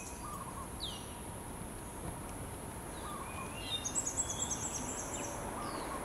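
Birds calling in the background: a short falling whistle about a second in, then a rapid run of high chirps a little past halfway, over a steady high hiss.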